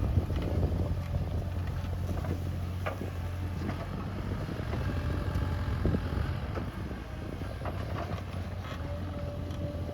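Bobcat E37 compact excavator's diesel engine running steadily under load while digging, with scattered knocks and scrapes as the bucket works hard, compacted soil.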